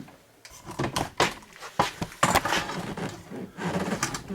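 Irregular clunks, knocks and short scrapes as a side-by-side refrigerator being scrapped is slid over into position.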